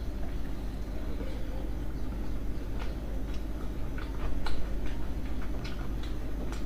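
Close-miked chewing of soft steamed dumplings, with scattered wet mouth clicks and smacks.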